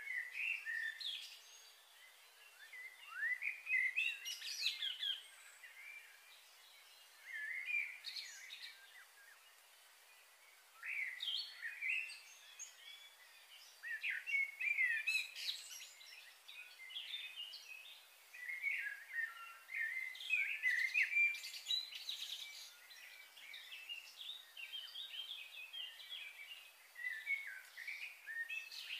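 Small birds chirping and twittering in short bouts every few seconds, with quieter gaps between.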